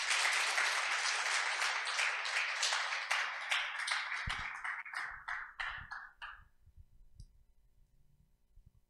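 Congregation applauding: dense clapping that thins to a few scattered single claps and dies out about six and a half seconds in.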